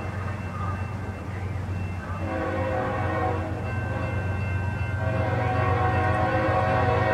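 A GE ES44AC-H diesel locomotive's multi-tone air horn sounding in separate blasts as the train approaches: the tail of one blast at the very start, a blast of about a second from about two seconds in, and a long blast starting about five seconds in. Under the horn, a steady low rumble of the diesel engines that grows louder as the train nears.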